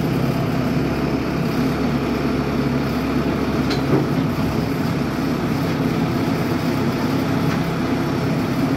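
Crawler-mounted water-well drilling rig's engine running steadily at idle, with a short click about four seconds in.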